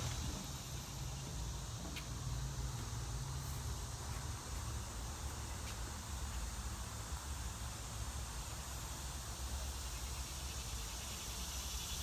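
Steady low hum with a faint high hiss, and a few faint ticks, the first about two seconds in: background ambience with no clear source.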